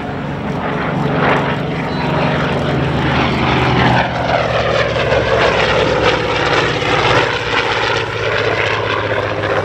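Douglas EA-1E Skyraider's 18-cylinder Wright R-3350 radial engine and propeller on a low fly-by, a steady drone whose pitch drops about four seconds in as the aircraft passes.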